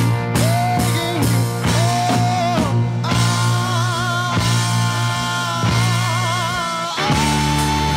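Rock band music: a 1971 recording with long held notes that waver in pitch over steady bass, and a new held note coming in about seven seconds in.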